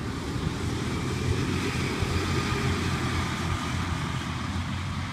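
A pack of go-karts racing past together, their small engines making a continuous mixed drone that swells slightly about a second or two in.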